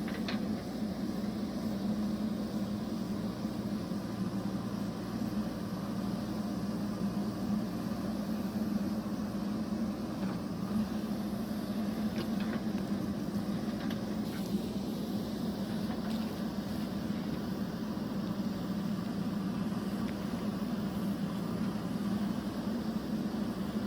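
Diesel engine of a JCB backhoe loader running steadily, with a low, even hum and a few faint clicks partway through.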